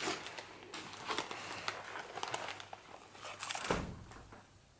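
Crinkling of a snack pouch as a toddler rummages in it for puffed snacks, with a duller bump about three and a half seconds in.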